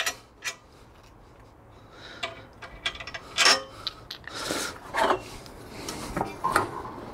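Scraping and rubbing with several sharp knocks and clicks from the pressure-washer trolley's parts being handled, starting about two seconds in.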